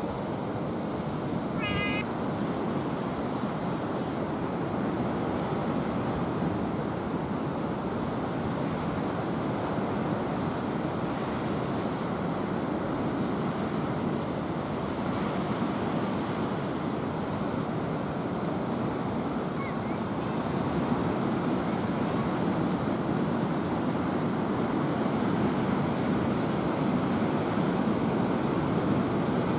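A steady rushing noise runs throughout and swells slightly near the end. A cat gives one short meow about two seconds in.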